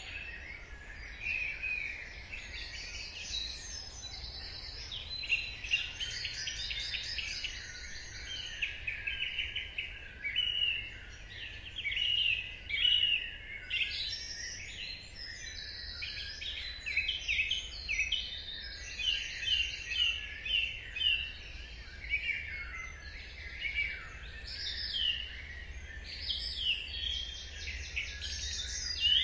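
Dawn chorus: many songbirds singing at once, a dense overlap of chirps, trills and rapidly repeated notes, over a steady low rumble.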